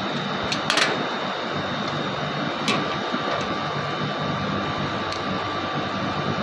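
Split air conditioner's outdoor condensing unit running steadily with a low hum, its control board bypassed so the contactor is wired direct, and the system now cooling. A faint whine comes in about halfway, and a few sharp clicks of a screwdriver and cover panel being handled sound over it.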